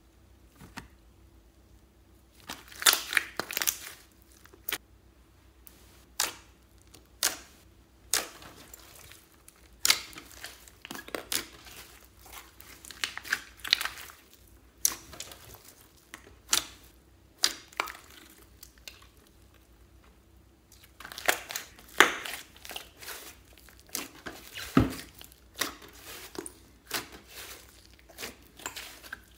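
A large mass of mixed slime being squeezed, folded and pressed by hand, giving irregular sharp pops and crackles in clusters with short quiet gaps between them.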